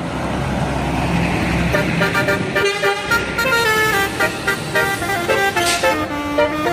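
Bus running past with engine and road noise, then from about two seconds in a telolet horn, the multi-trumpet air horn of Indonesian buses, plays a quick melody of stepped notes that goes on to the end.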